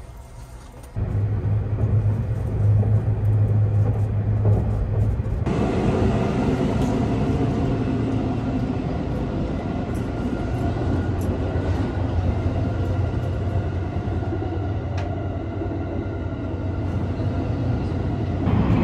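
Sunrise Express sleeper train running, heard from inside the carriage as a steady rumble with a low hum. The sound steps up suddenly about a second in, and changes again to a fuller, hissier rumble a few seconds later.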